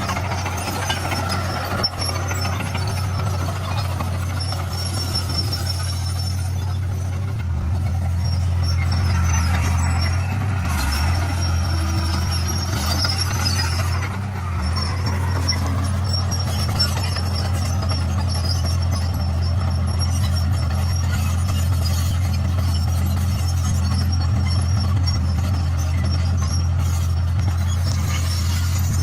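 D41 crawler bulldozer's diesel engine running steadily under load, getting louder about eight seconds in, with high squealing on and off.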